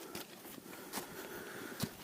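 Faint rustling with a few sharp clicks, roughly a second apart.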